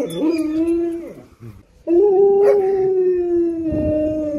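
Husky howling: a short howl, then after a brief pause a longer, steady howl.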